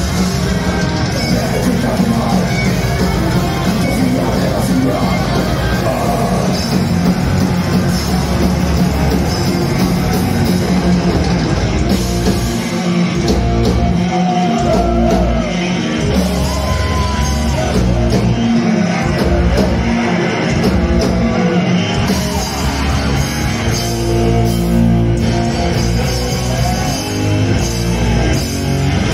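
Live heavy metal band playing: distorted electric guitars, bass guitar and drum kit, loud and dense, with a few bending lead-guitar lines in the middle.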